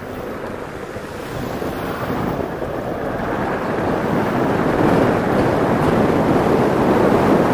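Wind rushing over the microphone of a rider on an E-Mobo DuoTork electric scooter. It grows louder over the first five seconds or so, then holds steady.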